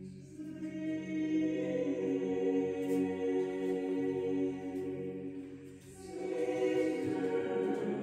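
Choral music: voices holding long, sustained chords, fading briefly about six seconds in before swelling again.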